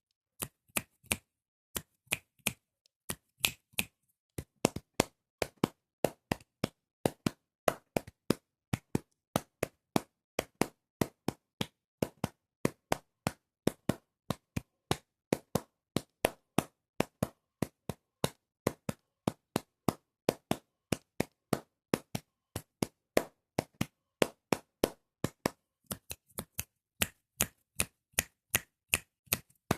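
Fingers and hands making percussive sound effects: a long, fairly even run of short, sharp taps, snaps and claps, about two to three a second, each separated by silence.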